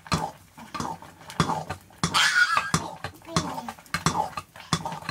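A wooden stirring stick scraping and knocking inside a metal cooking pot, a run of irregular knocks a few times a second, with a child's short squeal about two seconds in.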